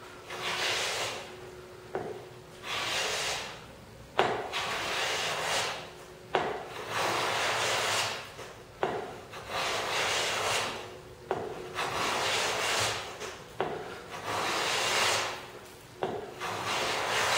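A hand plane shaving a wooden sled runner, about eight long strokes about every two seconds, each starting with a sharp click and followed by a scraping hiss. The runner's thickness is being planed down so that it will not ride on the bottom of the miter slot.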